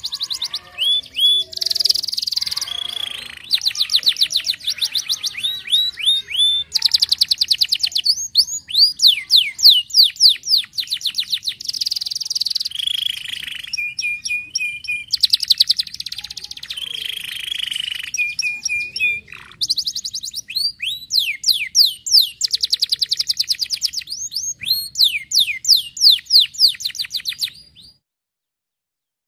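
Domestic canary singing a long, continuous song of rapid trills and fast repeated sweeping notes, in phrases with brief pauses. It cuts off suddenly near the end.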